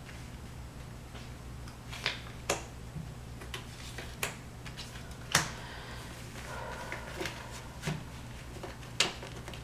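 Tarot cards being drawn from the deck and laid down one by one on a cloth-covered table: a series of light snaps and taps, several seconds apart, over a low steady hum.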